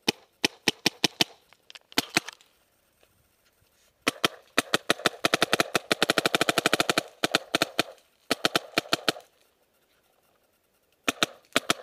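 Empire Invert Mini electropneumatic paintball marker, fitted with a Shockwave board, firing uncapped: quick strings of sharp pops, then a long rapid string of more than ten shots a second in the middle, and a few more shots near the end.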